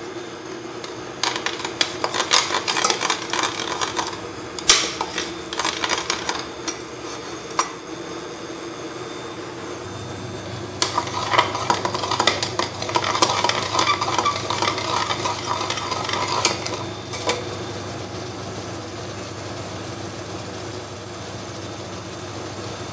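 Palm sugar and fish sauce sizzling in a pot as a utensil stirs and scrapes it, with the scraping busiest from about a second in until about seventeen seconds in, then a steady sizzle alone. The sugar mixture is being cooked down toward golden brown before the pork is added.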